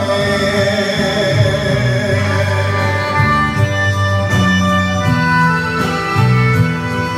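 A man's long held sung note tailing off in the first couple of seconds, then the instrumental interlude of an enka karaoke backing track, with guitar, plays on.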